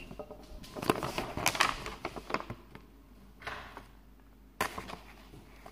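Paper instruction leaflet rustling and crinkling as it is unfolded and handled: a run of short rustles in the first two seconds or so, then two more later.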